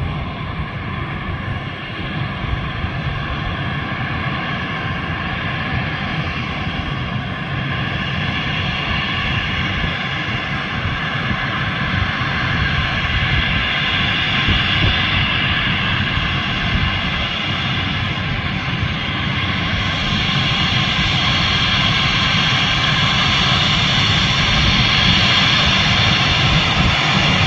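Embraer regional jet's turbofan engines running, a steady jet whine over a low rumble that grows gradually louder as the aircraft moves.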